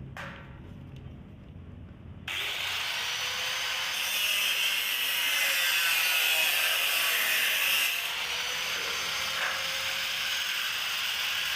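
A mini grinder (rotary tool) fitted with a small saw blade cutting into material, with a steady high grinding noise. The cutting starts suddenly about two seconds in and is a little louder in the middle.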